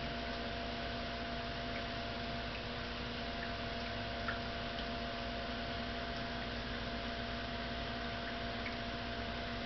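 Steady electrical hum with an even hiss, as of a small motor running, with a few faint ticks.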